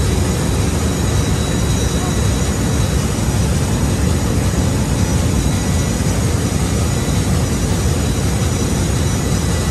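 Steady machinery roar of a ship's engine room, deep and unbroken, with a few faint steady high whines over it.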